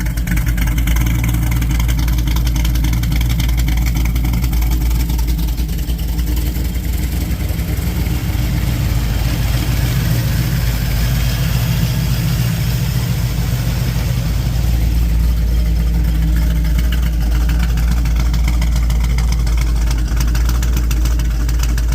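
GM LS V8 engine in a station wagon idling steadily. It is the only thing the engine has been made to do: the owner has found three bad fuel injectors, with cylinders 3, 5 and 7 getting no fuel, and badly fouled spark plugs.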